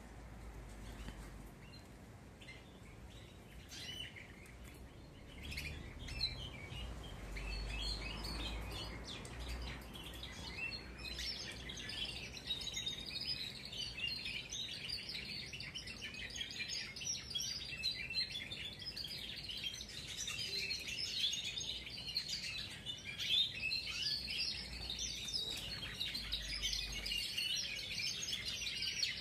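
Several young Spanish Timbrado canaries practising their song, rehearsing the notes that will later form their adult song. Their chirps and trills are scattered at first, then build to a dense, continuous twittering chorus from about eleven seconds in.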